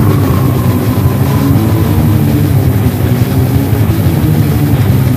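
Grinding-noise brutal death metal from a 1999 demo tape: a loud, dense wall of distorted guitars, bass and drums, with a high tone sliding up and levelling off near the start.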